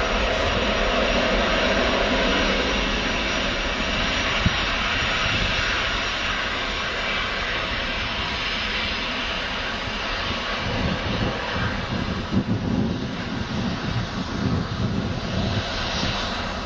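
Boeing 767-300 jet engines at takeoff power, a steady dense roar as the airliner rolls, lifts off and climbs away. From about twelve seconds in the low end turns uneven and gusty, and there is a single sharp click a few seconds in.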